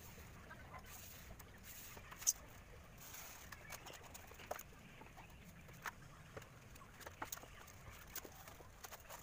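Faint scattered clicks, scrapes and creaks as a knife finishes cutting a styrofoam wing panel and the foam pieces are handled, with one sharper click about two seconds in.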